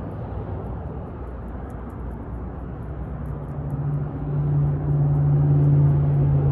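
A motor engine running, heard as a low rumble with a steady hum that grows louder from about three seconds in.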